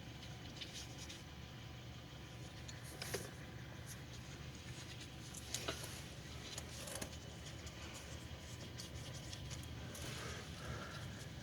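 Brake pad being fitted into a car's front caliper bracket: a few light metallic clicks and taps as the pad's backing plate is pushed in against the bracket clips, over a steady low hum.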